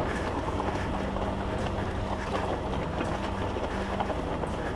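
KTM 890 Adventure R's parallel-twin engine running at steady revs, with loose rock crackling under the tyres in short scattered ticks and wind on the microphone.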